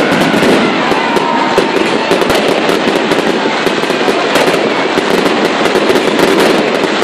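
Fireworks display going off close by: a dense, continuous crackle of rapid pops and sharp bangs from white crackling shells bursting overhead.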